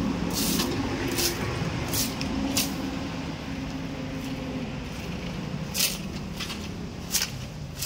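A small engine running steadily, with short hissing swishes every half second or so at first and then now and then.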